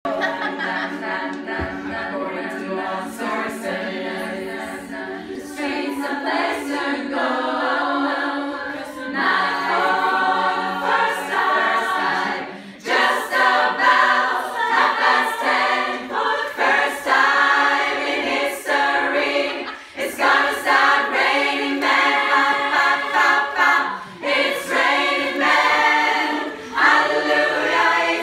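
Women's choir singing a cappella, many voices together: held chords at first, then louder, punchier rhythmic phrases from about halfway.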